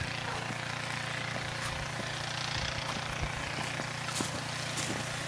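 A steady motor-like drone, with faint scraping and crunching of a snow shovel being pushed through snow.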